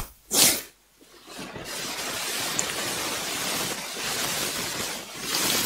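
A brief noise about half a second in, then a steady hiss of background noise on the microphone.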